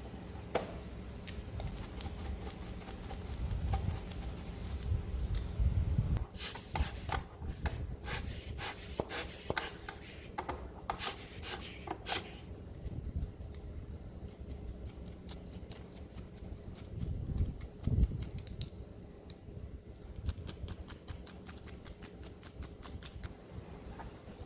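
Rubbing and scrubbing strokes as dust is cleaned off a Shaiko WS-930P cassette radio boombox, with a fast run of brisk strokes in the middle. A low thump comes about three-quarters through.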